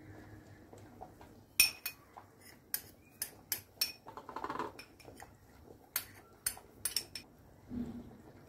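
Metal spoon and small dishes clinking and tapping against a ceramic bowl as dry spices are tipped in. Sharp clinks come in two clusters, about two to four seconds in and again around six to seven seconds in, with a brief scrape between them.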